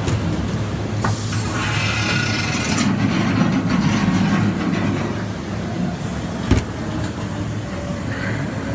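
Ghost train ride car rumbling steadily along its track, with a hissing burst lasting about two seconds shortly after the start and a single sharp knock a little past the middle.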